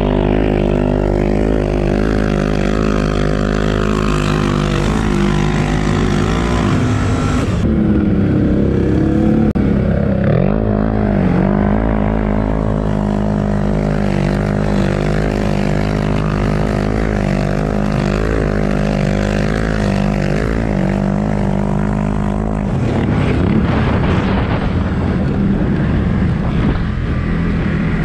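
Engine of a CFMOTO ATV on Camso snow tracks running steadily under load while riding through snow, its pitch dipping and then climbing again about eight to ten seconds in as the throttle is eased and reopened. Near the end the engine note fades under rougher track and wind noise as the machine slows.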